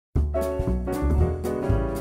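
Jazzy background music with piano chords over a bass line and drum hits, starting a moment in.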